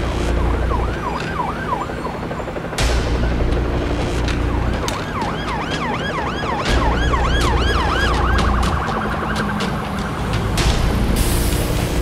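Emergency vehicle sirens yelping in fast rising-and-falling sweeps, two of them overlapping in the middle and switching to a quicker warble near the end. A low rumble comes and goes underneath, with a few sharp knocks.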